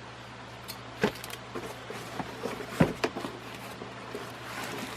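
Plastic ceiling-fan parts and their packaging being handled, with light rustling and two sharp knocks, about a second in and just under three seconds in.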